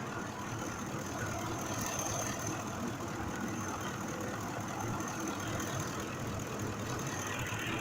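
Ford 5.4-litre V8 engine of a 2005 F-150 idling steadily, with a new fuel injector in cylinder 2 that had been misfiring; it now seems to be running properly.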